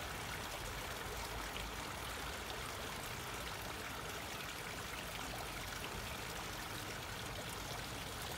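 Small trickling waterfall: thin streams of water falling from a stone wall and splashing steadily into a pond.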